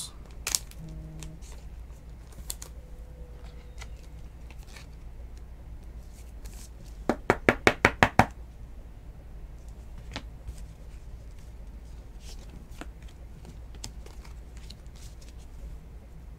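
Hands handling trading cards and plastic card sleeves and holders: scattered light clicks and rustles over a steady low hum. A quick run of about seven sharp taps comes around seven to eight seconds in.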